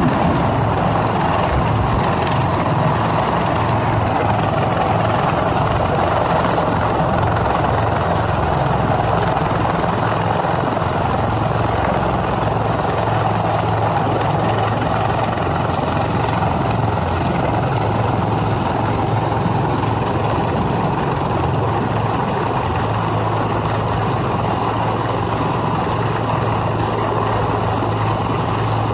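Rescue helicopter hovering close overhead during a winch hoist: a loud, steady rotor and turbine noise with a constant low hum.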